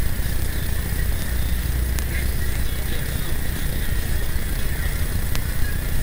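Coach bus cabin noise at highway speed: a steady low rumble of engine and road, with two faint clicks.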